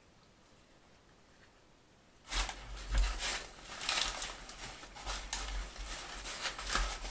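Near silence for about two seconds, then irregular eating sounds: someone chewing and handling a kebab and fries, with short crackly noises and deep bumps.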